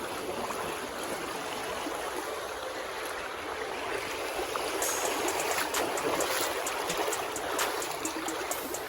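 Creek water running steadily over rocks, with light clicks and ticks joining in from about halfway through.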